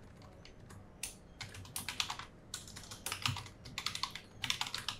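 Typing on a computer keyboard: quick runs of keystrokes in short bursts, starting about a second in.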